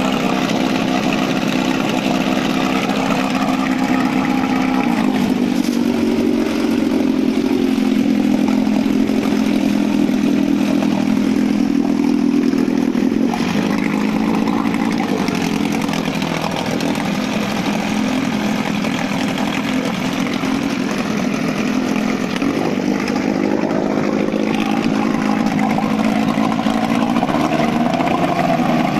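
1980 Johnson Sea Horse 15 HP short-shaft outboard, a two-cylinder two-stroke, running in a test barrel of water with the propeller churning it. Its speed rises about five seconds in, eases off a little past the middle and picks up again later.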